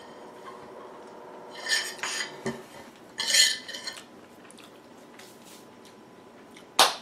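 Dishes and cutlery being handled: two short bursts of clinking and scraping, then one sharp clink near the end.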